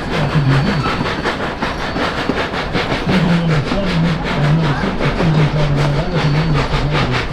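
Narrow-gauge train running, heard from an open car behind D&RGW 491, a K-37 2-8-2 steam locomotive: a steady rapid beat, about five a second, over continuous wheel and rail noise.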